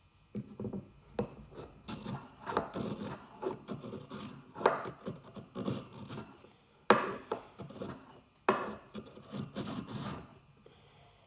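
Small Japanese hand plane shaving chamfers along the edges of a wooden mallet head: a run of short, quick scraping strokes of the blade across the wood that stop about a second before the end.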